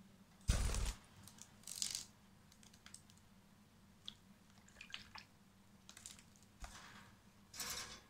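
A budgerigar bathing in a shallow plastic tub of water: several short bursts of splashing and wing-flapping, the loudest about half a second in with a low thump, and a few small clicks between them.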